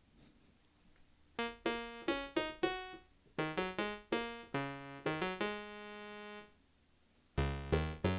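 Nunomo Qun mk2 synthesizer playing a run of short notes that start sharply and die away, oscillator 1 mixed about half and half with oscillator 2 set to a square wave. The notes begin about a second and a half in, with one longer held note past the middle. After a short gap, a lower, louder run of notes starts near the end.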